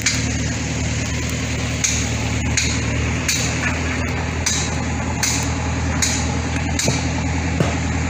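Steady engine drone of heavy construction machinery running, with scattered sharp knocks and clicks through it.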